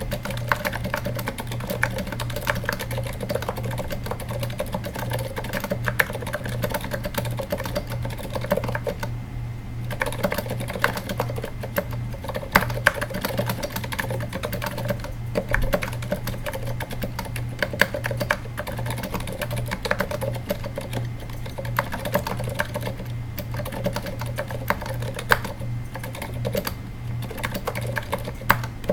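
Continuous typing on a Katana-60 keyboard with 78g Zilent silent tactile switches, rubber-dampened on both the downstroke and upstroke, giving soft, muted keystrokes; typing briefly pauses about nine seconds in. A steady low hum runs underneath.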